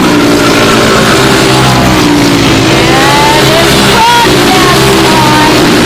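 Several four-stroke racing kart engines (Briggs & Stratton Animal) running at race speed on track, several pitches at once, with some rising and falling.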